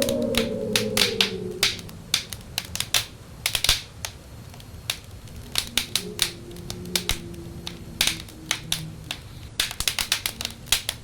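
Wood fire crackling, with irregular sharp pops and snaps throughout. Wind howls over it, its pitch falling away in the first two seconds, then comes back as a fainter steady whistle in the middle.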